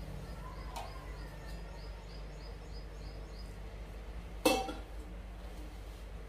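A single sharp metallic clank with a short ring about four and a half seconds in, from the steel mixing bowl being knocked while coarse dough is kneaded by hand. Behind it run a steady low hum and a faint high chirping, repeated about four times a second, that stops near the middle.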